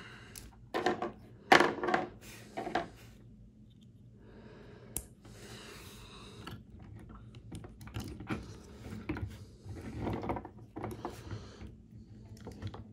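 Small hard clicks and clacks of action-figure parts being handled, set down and fitted as effect pieces and hands are swapped on a Super Robot Chogokin GaoGaiGar figure. There is a cluster of clicks in the first three seconds, one sharp click about five seconds in, and scattered clicks from about eight seconds on.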